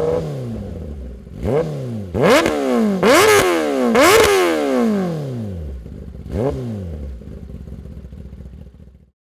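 2022 Kawasaki Ninja ZX-10R inline-four with an SC Project S1 exhaust, revved while standing in several sharp throttle blips. Each rev rises fast and falls back more slowly. It then settles back to idle, and the sound cuts off abruptly near the end.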